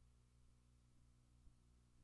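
Near silence: a faint steady low hum with a few soft ticks.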